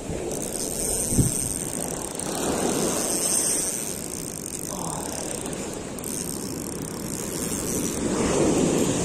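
A Shimano Sahara C3000 HG spinning reel being cranked close by, its gears ticking, over surf washing up the beach. There is one sharp thump about a second in, and the surf swells near the end.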